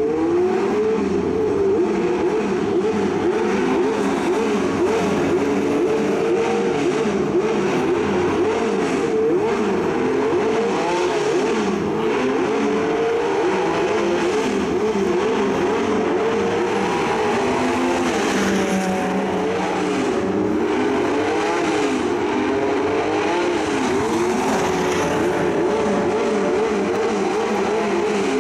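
Engines of several high-end cars running at once, their pitches rising and falling over one another as they accelerate, shift and pass.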